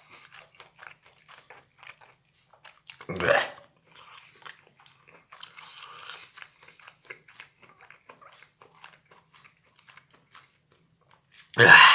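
A person chewing cooked mushrooms close to the microphone: a run of small, irregular wet mouth clicks and smacks, with one louder bite or smack about three seconds in and a loud burst near the end.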